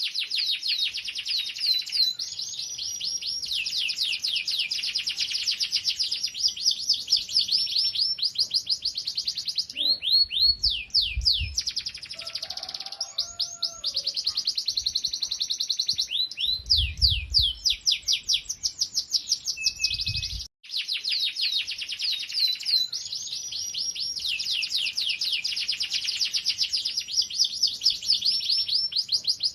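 Domestic canary singing a long, fast song of rapid trills, each a run of quickly repeated descending notes, with a brief break about two-thirds through.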